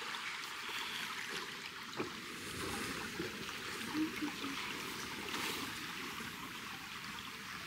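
Small stream running and trickling over rocks, a steady rush of water, with two short light knocks about two and four seconds in.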